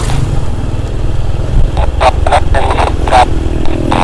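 Small motor scooter engine running while riding, with a dense low rumble and a few short, louder mid-pitched bursts about two and three seconds in.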